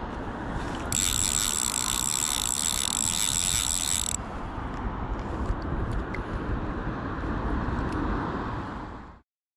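Fly reel's click-and-pawl ratchet buzzing evenly for about three seconds as fly line is wound onto it, over steady low river noise. All sound cuts off near the end.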